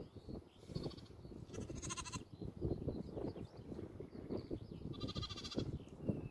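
Lambs bleating: two short, high-pitched bleats, one about one and a half seconds in and another about five seconds in, over a low background rumble.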